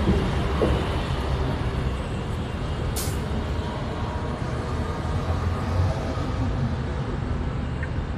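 Steady low rumble of road traffic, with one short sharp hiss about three seconds in.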